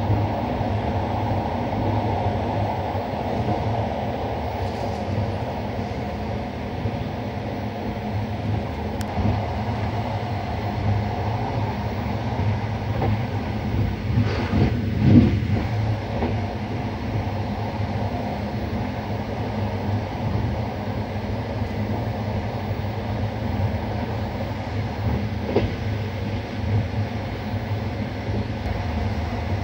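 Steady running noise of an Sr1 electric locomotive at speed, heard from inside its cab: wheels rolling on the rails together with the locomotive's machinery. About halfway through there is a brief, louder rattle of the wheels over the track.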